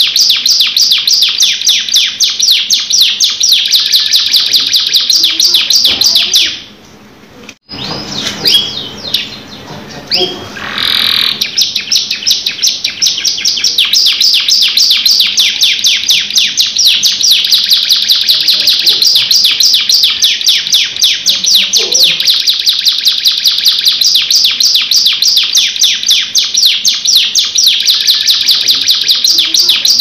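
Domestic canary singing a long rolling trill: fast, high repeated notes. About six seconds in it breaks off for a few seconds of scattered notes, then picks the trill up again and holds it for the rest of the time.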